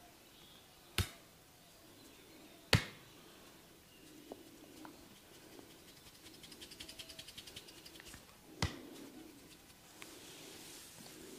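A barber's hands working on a head during a massage: three sharp snaps, the second the loudest, with a quick run of fingertip scratching at about ten strokes a second before the last one, and soft rubbing between.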